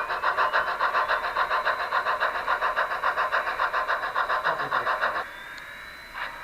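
Model train locomotive sound, a rapid even pulsing of about seven beats a second that stops abruptly about five seconds in, after which slower single beats follow.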